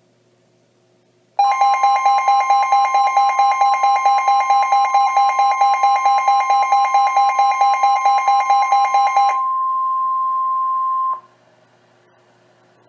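NOAA Weather Radio warning alarm tone: a steady high 1050 Hz tone starting about a second and a half in and lasting nearly ten seconds. For most of its length it is overlaid by a louder, harsher electronic alarm tone beeping about five times a second, which stops a couple of seconds before the steady tone cuts off.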